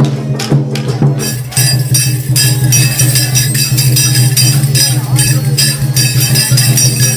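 Festival music with regular beats over steady low tones. From about a second in, a dense, rhythmic metallic jingling joins it: the rings on ringed iron staffs (kanabō) carried by the girls leading the float.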